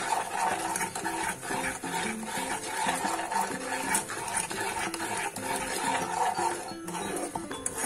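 A spoon stirring and scraping a thick coconut, sugar and milk mixture around a non-stick kadhai in repeated strokes, with soft background music.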